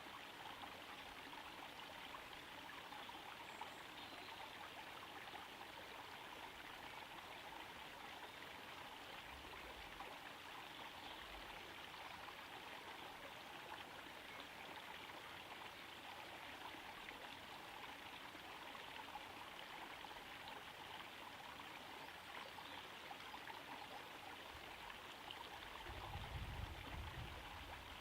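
Small garden-pond waterfall, water trickling steadily into the pond. A brief low rumble comes near the end.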